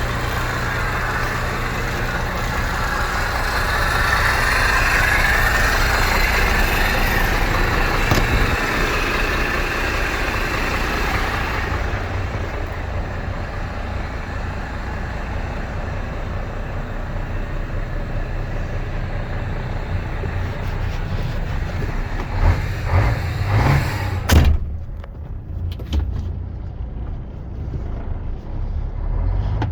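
MAN TGA 18.410 tractor unit's six-cylinder diesel engine running steadily. Near the end come a few clunks and one sharp, loud knock, after which the sound is quieter.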